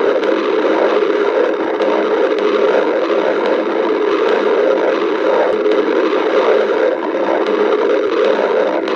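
Human stomach growling: a steady, unbroken rumble that wavers slightly without stopping.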